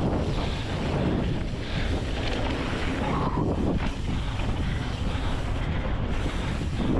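Wind rushing over the camera microphone as a mountain bike descends a dirt flow trail, with tyres rumbling and crunching on the dirt. The noise is steady and loud throughout.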